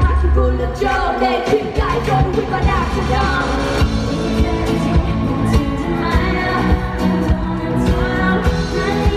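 Female K-pop vocals sung into handheld microphones over a pop backing track, played through an arena sound system and heard from the audience. The deep bass drops out about a second and a half in, and a steady beat carries on under the singing.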